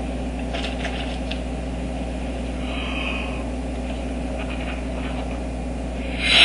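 Steady low background hum, with faint brief crackles of a rubber balloon being handled twice.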